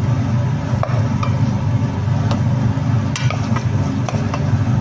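A wooden spatula clicking and scraping against the pan as sauce-coated chicken pieces are stirred, a dozen or so short irregular clicks. Under it a steady low rumble is the loudest sound.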